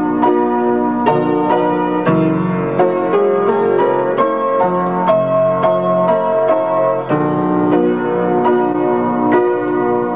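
Piano playing a melody over sustained chords, with new notes struck a few times a second.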